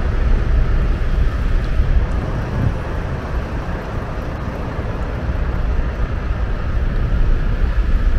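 A heavy diesel engine running steadily, its sound mostly low and deep.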